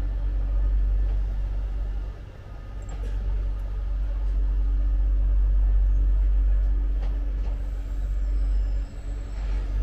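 SNCF AGC bi-mode regional multiple unit (B 82500 series) pulling slowly away along the platform: a steady low rumble, with a thin high whine coming in near the end.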